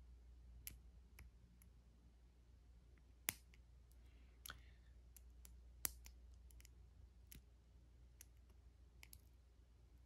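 Faint, irregular small metal clicks of a lock pick and tension tool working the pin tumblers in the key override cylinder on the back of a Master combination padlock, two of them sharper than the rest, over a low steady hum.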